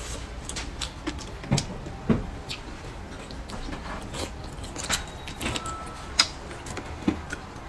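Close-miked chewing and mouth sounds of a person eating, with scattered short clicks and smacks, a few ringing briefly like chopsticks touching a ceramic bowl.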